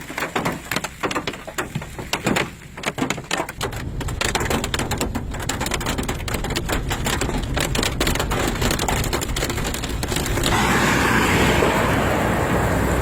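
Large hailstones, up to golf-ball size, pelting a vehicle. For about the first four seconds they land as separate sharp knocks, then they merge into a dense steady clatter that grows heavier about ten seconds in.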